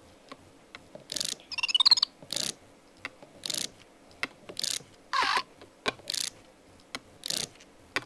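Kung Zhu battle hamster toy swiped back and forth over the ridged stripes of its plastic power-up pad, rattling in short strokes about once a second as it charges up. About one and a half seconds in there is a brief wavering electronic chirp.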